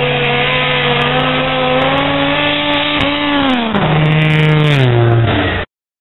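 Racing snowmobile engine screaming at full throttle down a drag strip. The pitch climbs as it approaches, then drops sharply as it passes by about three seconds in. The sound cuts off abruptly near the end.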